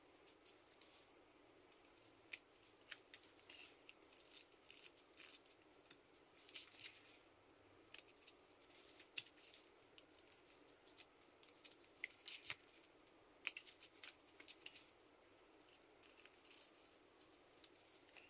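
Carving knife slicing small chips from a linden-wood workpiece while chamfering its edges: faint, short scraping cuts that come at irregular intervals, in loose clusters.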